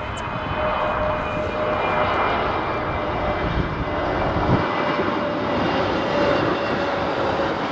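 Airbus A320neo's CFM LEAP-1A turbofan engines on approach to land, a steady rushing jet noise with a held whine as the airliner passes close by.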